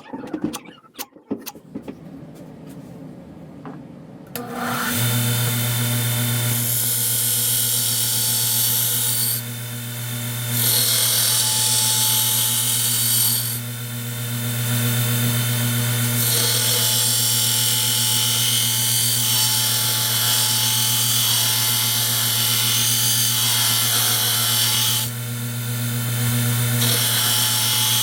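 An electric grinder starts about four seconds in and runs with a steady hum, grinding metal with a loud hiss that eases off three times for a second or two as the work is lifted away.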